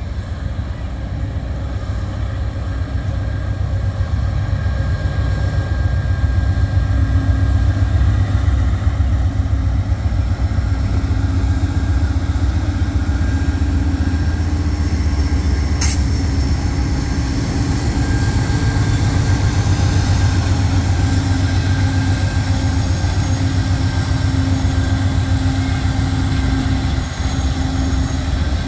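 Two GE P42 diesel-electric locomotives, 16-cylinder engines, passing close by with a loud, steady low drone that grows louder over the first several seconds, then the passenger cars roll by behind them. A single sharp click about 16 seconds in.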